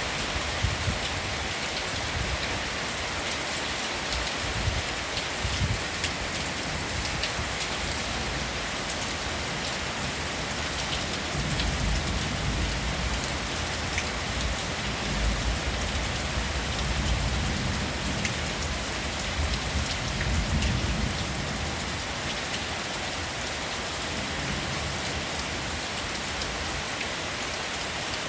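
Heavy downpour falling: a steady hiss of rain with individual drops ticking. Low rumbles swell and fade a few times around the middle.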